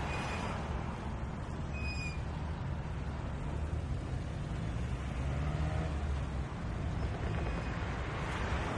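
Rush-hour city street traffic: a steady rumble of engines and tyres from passing cars, buses and trucks, with a few brief high squeaks near the start and about two seconds in.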